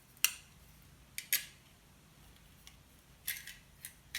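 Small metal parts of a soldering iron stand clinking and clicking as they are handled and fitted together: several light, sharp clicks, two close together about a second in and a short cluster about three seconds in.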